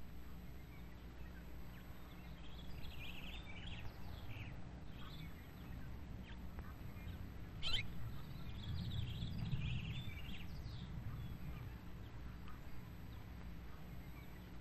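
Outdoor ambience with birds chirping now and then over a steady low hum, and one sharp click about eight seconds in.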